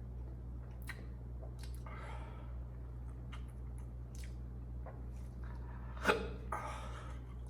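Faint eating and mouth sounds from a person eating spicy instant noodles: scattered small clicks, a soft breathy noise about two seconds in, and a louder sudden sound about six seconds in, over a steady low hum.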